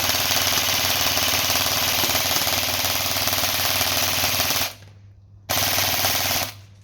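Airsoft electric gun firing on full auto: a long rapid burst that stops about two-thirds of the way in, then a second burst of about a second. Its gearbox has 16:1 gears driven by a high-power motor, cycling at about 18 rounds a second.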